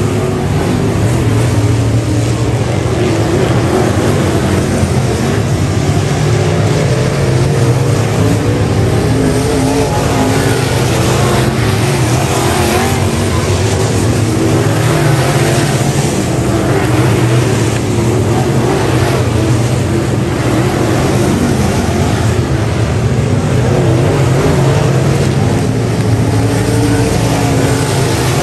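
A pack of dirt-track race cars running laps under power, several engines overlapping in a loud, continuous drone whose pitch rises and falls as the cars go through the turns and down the straights.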